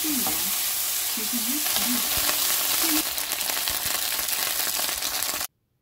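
Vegetables sizzling as they are stir-fried in a hot wok and stirred with a spatula. It is a steady frying hiss that cuts off suddenly near the end.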